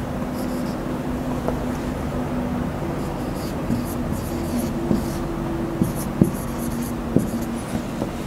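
Marker pen writing on a whiteboard: a series of short scratchy strokes with a few light taps, over a steady low hum.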